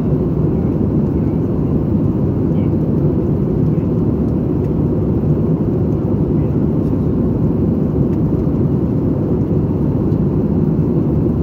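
Steady low rumble of cabin noise inside an Airbus A320 in flight: the engines and the air rushing past the fuselage, even and unchanging throughout.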